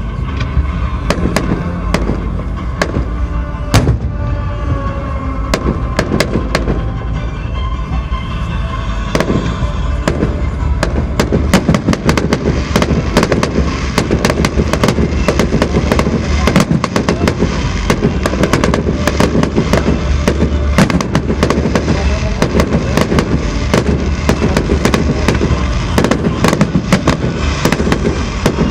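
Fireworks display: a continuous run of sharp bangs and crackling reports, growing denser and louder about a third of the way in.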